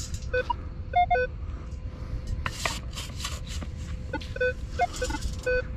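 Minelab Equinox metal detector giving short beeps of several different pitches as its coil passes over a buried target. A sand scoop scrapes and digs through beach sand, loudest about two and a half to three seconds in and again near five seconds.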